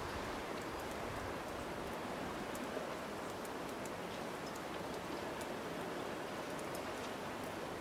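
Steady seaside ambience: an even hiss of wind and water with a few faint ticks.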